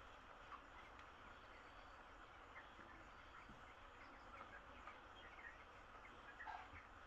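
Broiler chicks peeping faintly and sporadically, short scattered cheeps over a steady low hiss, with one slightly louder cheep near the end.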